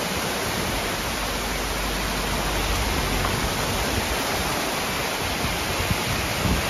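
Torrential rain pouring down with muddy floodwater rushing along a roadside gutter, a steady dense hiss with no letup.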